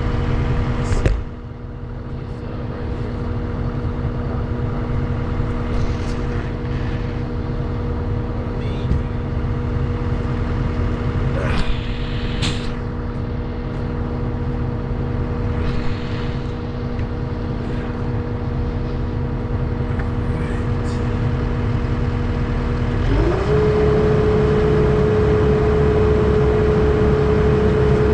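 Diesel engine of a tri-axle rollback truck running steadily, with a few short clicks and hisses. Near the end the engine speed rises quickly and holds at a higher steady speed.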